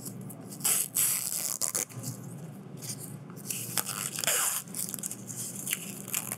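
Thin protective foam film being peeled off a CNC-cut PVC foam frame, making irregular crackling, tearing and scraping noises.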